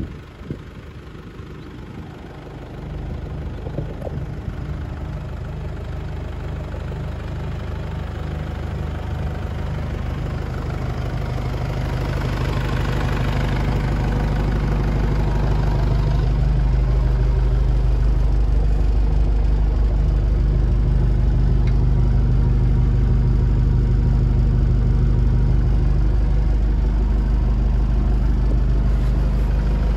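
Heden 4-tonne forklift's engine idling steadily, growing louder over the first fifteen seconds or so, then holding level.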